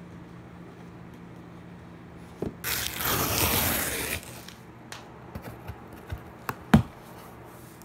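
Cardboard box being ripped open by hand: a loud tear lasting about a second and a half, then several sharp knocks and rustles as the cardboard is handled, the loudest knock near the end.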